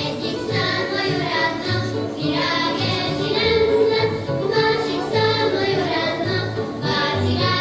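Children's voices singing together over recorded backing music with a pulsing bass line.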